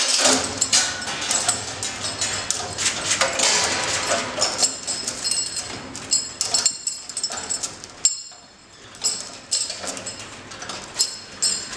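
Steel mockup frame and hoist chain clanking and rattling after a chain-braked drop, with many sharp metal knocks and a ringing tone. It eases off briefly about eight seconds in, then more clanks follow as the chain is handled.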